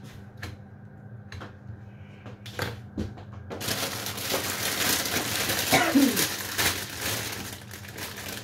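Plastic bag of baby spinach crinkling and rustling as hands open it and reach in among the leaves. The crinkling starts about three and a half seconds in, after a few light clicks.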